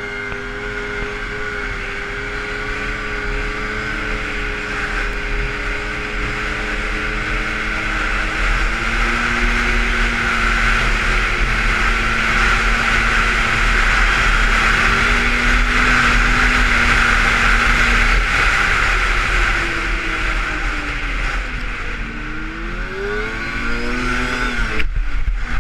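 Arctic Cat Crossfire 600 snowmobile's two-stroke twin engine running at a steady high speed, with a rush of wind and track noise. Near the end the revs fall and rise several times as the throttle is worked, then the engine note drops away suddenly just before the end.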